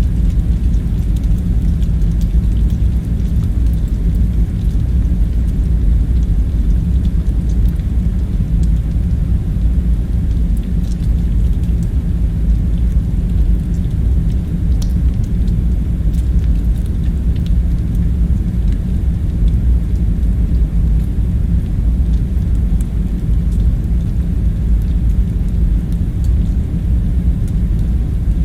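Steady low rumble of the bunker's background ambience, even in level throughout, with a few faint scattered ticks above it.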